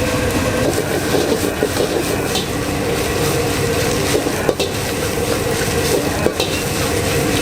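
Nasi goreng (fried rice) frying in a wok with a steady sizzle, while a metal spatula stirs it and scrapes against the pan. A few sharper knocks of the spatula on the pan come about halfway through and near the end.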